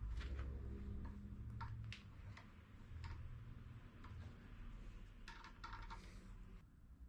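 Scattered light clicks and taps of a wrench on the metal hose fitting of a homemade hand air pump, held in a bench vise, over a low hum.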